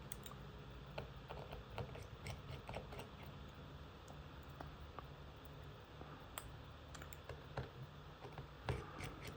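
Faint, scattered light clicks and taps of small tools and iPad parts being handled, over a low steady hum.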